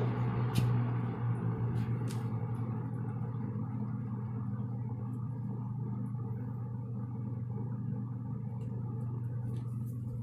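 1975 Kmart K223-W box fan with a Westinghouse motor running on its low setting: a steady low motor hum under a wash of moving air. The fan eases down in loudness over the first few seconds, and there are two light clicks in the first couple of seconds.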